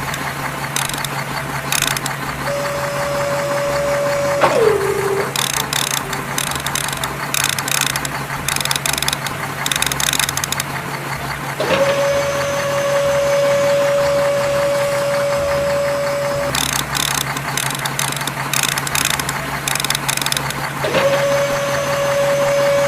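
Toy crane truck being worked by hand: runs of quick ratcheting clicks from its plastic gears, with a steady whine that starts and stops several times and once slides down in pitch as it stops.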